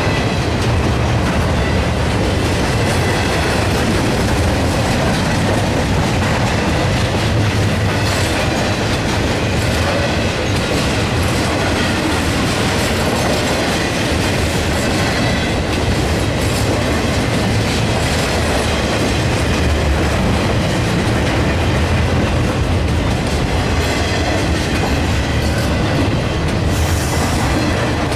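Intermodal freight train's flatcars, loaded with highway trailers, rolling past at speed: a steady, loud rumble of steel wheels on the rails.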